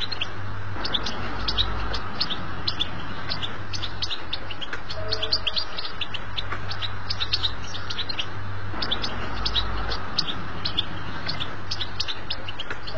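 European goldfinch song: a fast, continuous chatter of short high chirps and twitters, the kind of song played to teach young goldfinches to sing, over a steady low hum.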